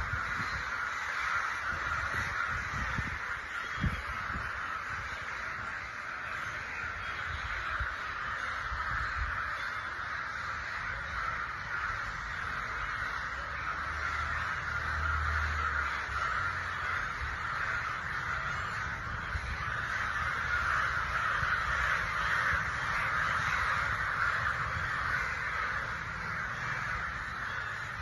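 Crows cawing, many calls overlapping into a continuous din, with a low rumble underneath.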